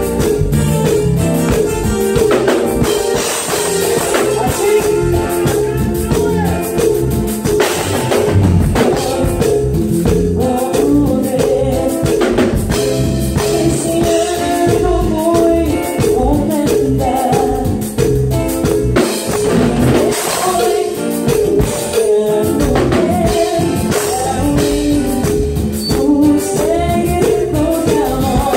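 Live Tejano band playing a song with a woman singing lead into a microphone, backed by drum kit, electric bass and timbales.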